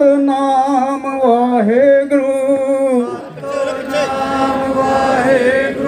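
A man singing a slow Sikh devotional chant in long held notes with wavering pitch. The line breaks briefly about three seconds in and then carries on.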